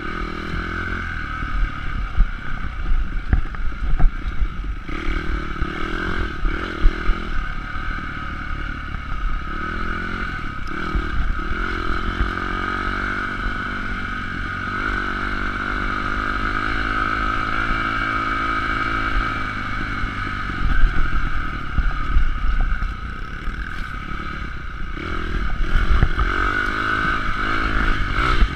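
Honda CRF250X dirt bike's single-cylinder four-stroke engine running under way, its revs rising and falling with the throttle. Sharp knocks and clatter come through in the first few seconds, and the engine holds a steadier pitch for a stretch mid-way.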